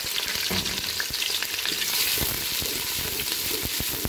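Sliced onions sizzling steadily in hot oil in a metal pot, frying toward light brown. A wooden spatula stirring them gives irregular scrapes and knocks against the pot.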